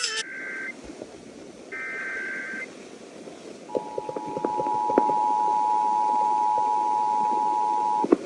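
Emergency Alert System broadcast tones: two short bursts of the buzzing digital SAME data header, then the steady two-tone EAS attention signal, which starts about halfway through and cuts off suddenly near the end. Faint crackles of radio static run under the tones.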